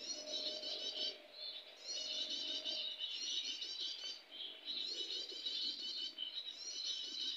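A small songbird singing a fast, high, chattering trilled phrase, repeated about five times with short pauses between.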